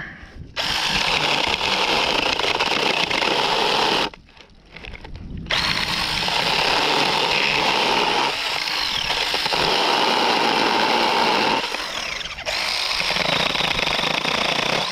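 Battery-powered mini chainsaw running and cutting tree limbs, in three runs with short stops about four and twelve seconds in.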